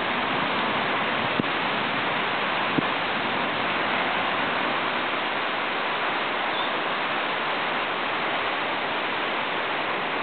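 Steady rushing hiss of stormy weather outdoors, heard through a compact camera's built-in microphone, with two faint ticks in the first few seconds.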